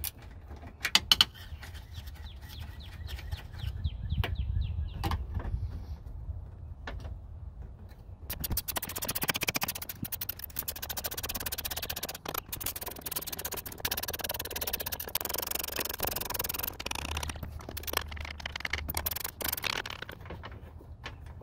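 Ratchet wrench clicking on car door hinge nuts as they are loosened and run off: a few separate clicks first, then a long run of rapid ratcheting from about eight seconds in until near the end.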